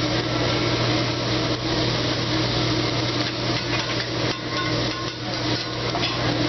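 Shrimp and scallops sizzling on a hibachi griddle over a steady low hum, with a metal spatula scraping and clicking against the steel plate.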